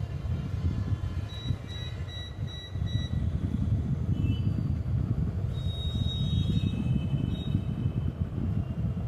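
Steady low rumbling noise, with a quick run of about five short high beeps between one and three seconds in and a few longer high tones later.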